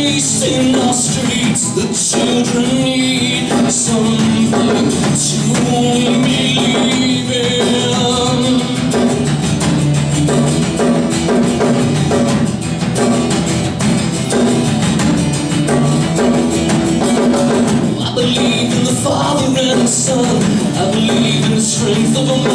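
Live music: acoustic guitar strummed in a steady, driving rhythm through an instrumental passage of the song.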